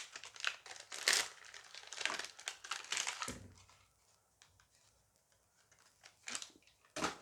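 A Dice Masters booster pack wrapper being torn open and crinkled, a dense crackling for the first three seconds or so. After a pause there are two short rustles near the end.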